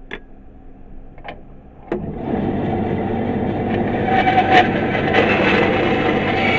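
A bandsaw switches on about two seconds in and runs steadily, its blade cutting into a small block of African blackwood, the sound growing a little louder and harsher as the cut goes in. A few light knocks come before it starts.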